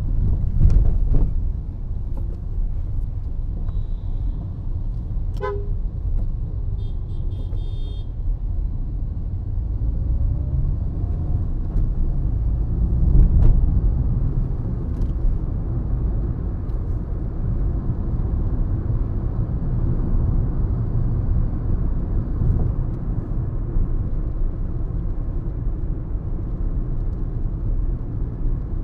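Steady low rumble of a car driving, engine and road noise, with a couple of brief horn toots in the first eight seconds.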